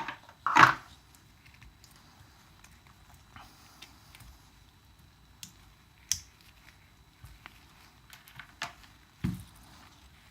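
Scattered small clicks and knocks of parts and tools being handled on a workbench, the loudest about half a second in and a duller thump near the end.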